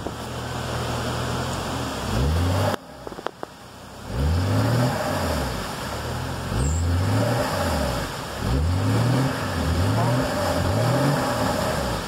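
Jeep Cherokee engine revved over and over in short bursts, each rev rising in pitch, while the wheels spin in deep mud trying to get the stuck Jeep out. The engine sound drops away for about a second near the three-second mark, then the revving picks up again.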